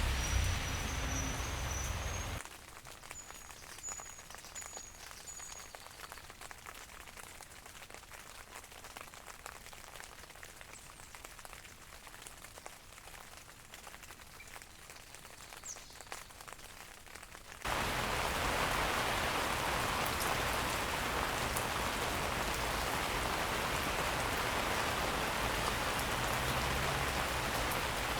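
Rain falling, in three recordings cut together: a couple of seconds of heavy rain over a low rumble, then about fifteen seconds of light, soft rain with a few short high chirps near its start, then a sudden switch to heavier, steady rain.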